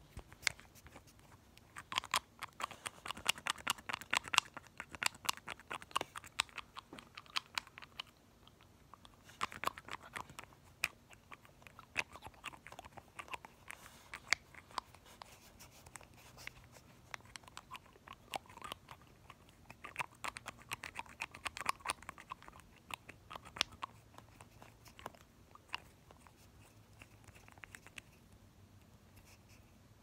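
A nail polish bottle's black brush cap being pumped up and down in the bottle neck, giving rapid runs of close-up clicks. The clicking comes in several heavier bursts of a few seconds each, with lighter clicks between.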